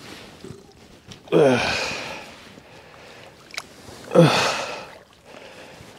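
A man grunting hard with strain twice, loud "ugh" sounds falling in pitch, about a second in and again about four seconds in, as he wrestles a big catfish by hand. Water splashes as the fish thrashes in the shallows.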